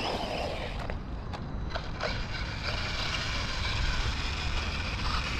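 Losi Lasernut U4 brushless RC rock racer running, with a few sharp clicks from its drivetrain in the first two seconds and a faint steady whine after. The driver takes the clicking for failing original ring gears in the diffs.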